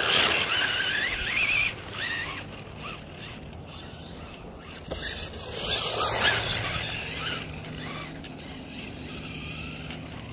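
Electric RC rally car's motor whining, rising and falling in pitch for the first two seconds as the throttle is worked, then quieter, with a brief rushing noise about six seconds in. A steady low hum runs underneath.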